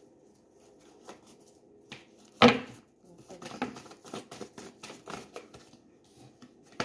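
Tarot cards being shuffled by hand: a run of soft clicks and riffles, with one much louder snap about two and a half seconds in, and cards being laid down on a wooden table.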